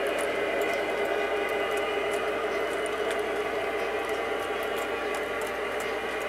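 O-gauge model train locomotive running on the track: a steady whine of motor and gears, with light scattered clicks of the wheels on the rails.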